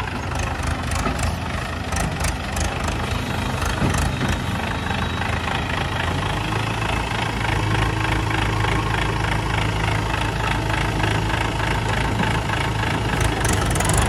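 Mahindra 475 DI tractor's four-cylinder diesel engine running close by, with some rattling early on as it moves, then settling into a steady idle about six seconds in.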